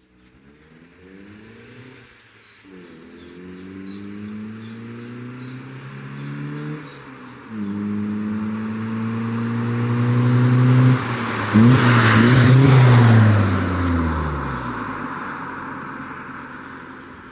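Vauxhall Corsa B accelerating hard through the gears, its engine note climbing and dropping at each of about three gear changes. It is loudest as it passes about two thirds of the way in, then the pitch falls and the sound fades as it drives away.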